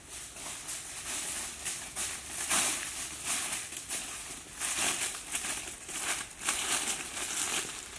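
Footsteps crunching through dry forest leaf litter, a crackly step every half second or so.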